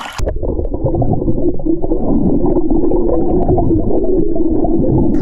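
Muffled underwater rumble and gurgle of lake water heard through a submerged camera, starting abruptly as the camera goes under. It is loud and steady, with all the higher sounds cut off.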